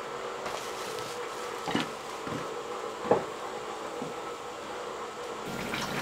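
A few light knocks and clunks, four or so spread through the middle, as someone moves about and handles things in a crawl space, over a steady faint hum.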